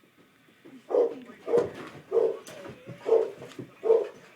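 A dog barking repeatedly, about five short barks a little under a second apart, in excited greeting.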